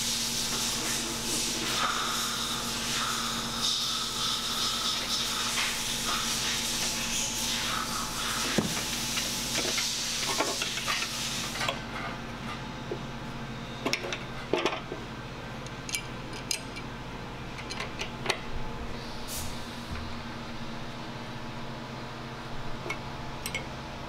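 A motorcycle front fender being worked into place between the fork legs: a hissing, scraping rustle for about the first half, then scattered light clicks and knocks as the fender is lined up with its mounts.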